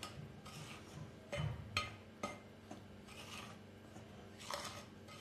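A metal spoon stirring a dry mix of fine semolina and cocoa powder in a glass bowl: soft, grainy rasping, with a few sharp clicks of the spoon against the glass about a second and a half to two seconds in.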